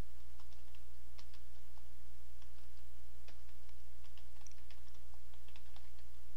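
Computer keyboard typing: irregular keystroke clicks as a search phrase is typed, over a steady low hum.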